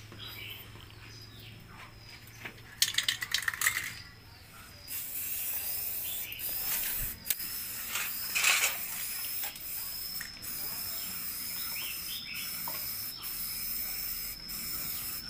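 Aerosol spray-paint can shaken, its mixing ball rattling quickly for about a second; from about five seconds in the can sprays in a steady hiss.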